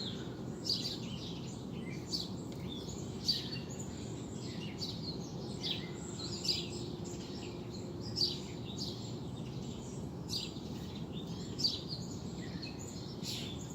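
Small birds chirping on and off every second or two over a steady outdoor background hum.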